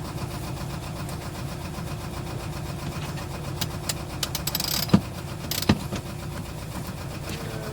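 A sailboat's engine running steadily at low revs, a low pulsing drone, with a few sharp clicks and two louder knocks around the middle.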